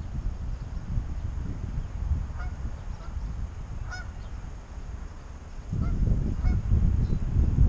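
Geese honking: several short calls, over a low rumble of wind on the microphone that strengthens near the end.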